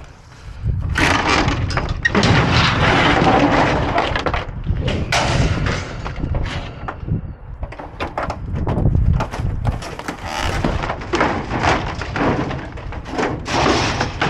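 Rigid plastic display panels and cardboard-framed air filters clattering and cracking as they are shifted and trodden on in a dumpster. A long rattling crash about a second in, then irregular clatters and knocks.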